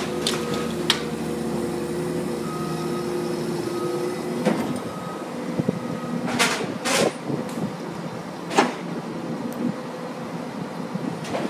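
Komatsu hydraulic excavator's diesel engine running steadily while its attachment works at a building's steel frame, with several sharp bangs and crashes of metal and debris, the loudest about six to seven seconds in.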